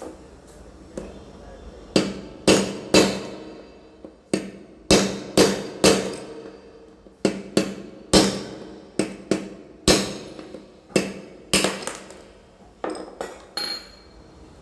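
Hammer blows on metal knocking the worn bearing out of a car's belt tensioner pulley: about twenty sharp strikes at an uneven pace, some in quick pairs and threes, each ringing briefly.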